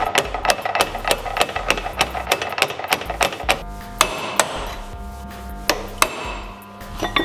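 Steel hammer rapidly tapping a bearing down onto a tailshaft journal through a slotted old inner ring used as a drift, about five or six even taps a second. The fast tapping stops after about three and a half seconds, then a few single blows follow as the bearing reaches its seat.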